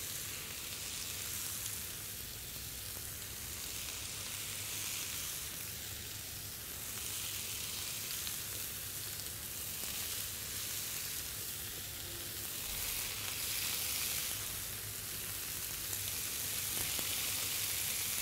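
Seasoned, oiled chicken breast pieces sizzling on the hot ribbed plate of an electric contact grill: a steady sizzle that swells and eases every few seconds.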